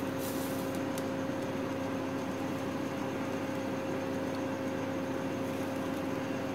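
A steady electrical hum with a fan-like whir, two low tones held unchanged, with a faint tick about a second in.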